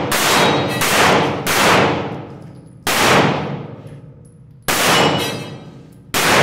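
Pistol shots, five at uneven intervals, each fired in an indoor concrete range and trailing a long echo, with steel targets clanging as they are hit.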